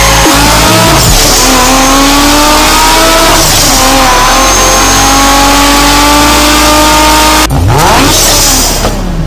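Recorded engine sound effect from a die-cast toy Maybach GLS 600's built-in speaker: a car accelerating, its pitch climbing, dropping back at a gear change about three and a half seconds in, then climbing again. It breaks off abruptly about seven and a half seconds in, and a short different effect follows.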